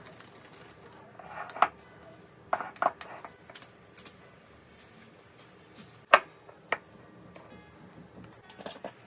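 Salt, lime pieces and green chillies being dropped and pressed into a glass jar while layering lime pickle, with scattered clinks and knocks against the glass, the sharpest about six seconds in.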